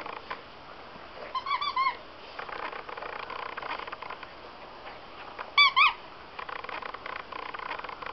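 Squeaker in a plush dog toy squeaked by a dog chewing it: a quick run of four short squeaks about a second and a half in, then two louder squeaks a little past halfway, with soft crackling and rustling of chewing in between.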